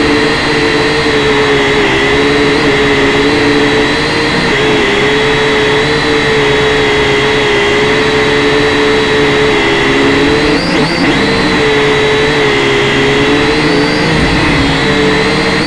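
Quadcopter's electric motors and propellers whining steadily, picked up close by the camera on board. The pitch wavers briefly about two-thirds of the way through as the motors change speed.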